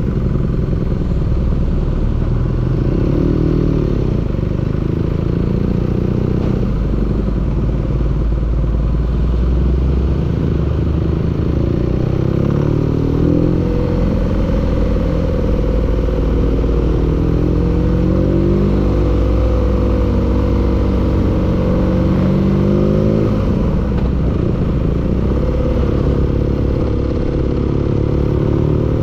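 Engine running with a clattering knock. Its speed drifts up and down a little without any sharp revving.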